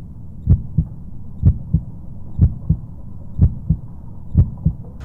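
Heartbeat sound effect: five paired low lub-dub thumps, about one pair a second, over a low rumble.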